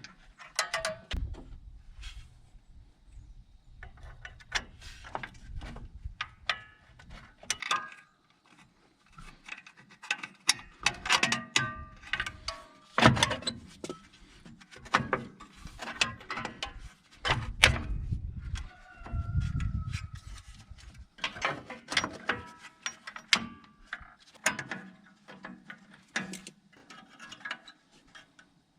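Hand tools and drum brake hardware clinking and clicking irregularly, some strikes ringing briefly like metal parts, with a few stretches of dull low knocks.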